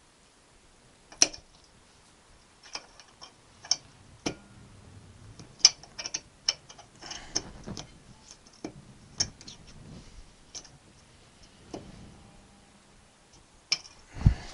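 Small metal parts of a classic Mini's clutch master cylinder clicking and tapping against each other and the cylinder body as the spring, piston and pushrod are fitted back into the bore by hand. The clicks come irregularly, a dozen or so, with a heavier low thump near the end.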